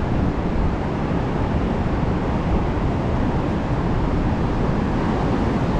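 Vernal Fall's rushing water pouring over the brink of the falls: a steady, dense rush with no breaks.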